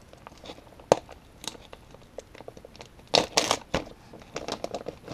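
Crinkling of a plastic Berkley PowerBait soft-bait pouch as fingers dig inside for a bait. There is a sharp click about a second in and a louder burst of crinkling a little after three seconds.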